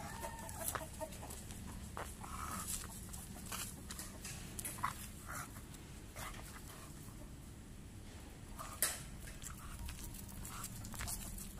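American Bully dog panting heavily in short, irregular breaths. It is out of breath after only a short walk: the overweight dog's stamina is poor.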